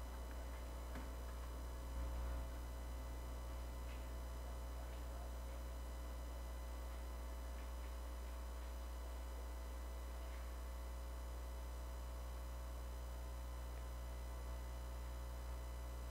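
Steady low electrical hum with thin steady tones above it, and a few faint clicks scattered through.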